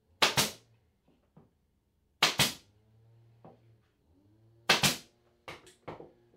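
Ridgid pneumatic pin nailer firing three times, about two seconds apart, each shot a sharp double crack as it drives a pin nail into plywood. A few lighter knocks follow near the end.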